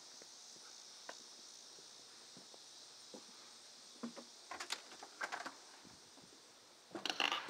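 Light footsteps on a wooden porch, then the handle and latch of a glass storm door and the front door clicking and rattling as the doors are opened. The loudest clatter of latch and door comes near the end.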